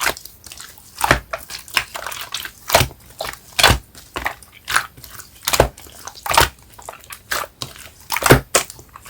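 Clear slime being pressed and squished by hand, making irregular wet pops and crackles, a few of them sharp and loud.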